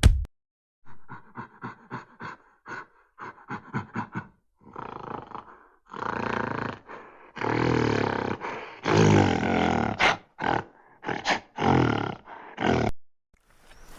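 An animal roaring: a run of short, rapid grunts, then several long, loud roars with short gaps between them.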